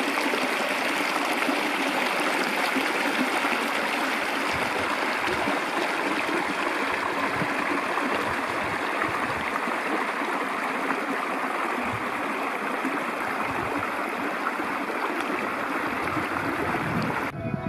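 Shallow mountain stream flowing over stones, a steady rush of water.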